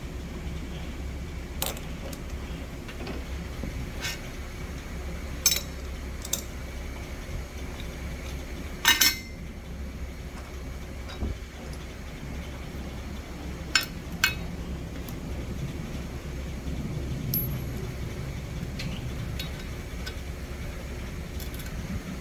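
Steady low machine hum with scattered sharp metallic clinks of metal parts or tools, the loudest a short double clink about nine seconds in.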